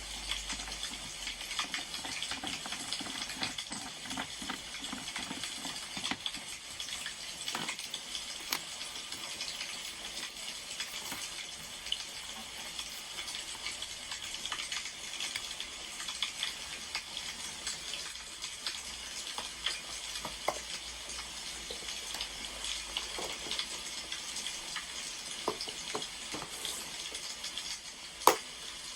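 Wood fire crackling steadily, dense small pops over a soft hiss, with a sharper click near the end.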